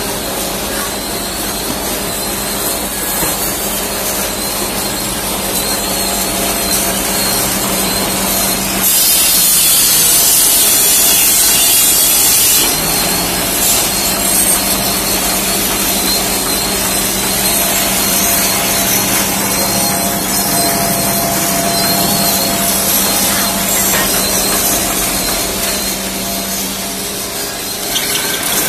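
Bamboo skewer-making machine running, a steady motor hum with the dry rasp of bamboo sticks being worked. It grows louder and harsher for about four seconds, a third of the way through.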